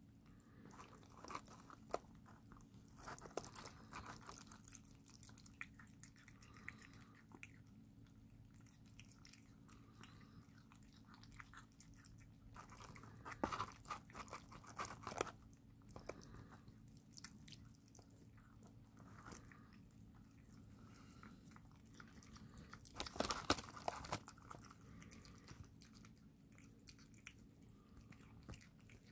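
Kittens chewing raw liver: faint chewing and clicks in bouts, the loudest about halfway through and again near the end. A steady low hum runs underneath.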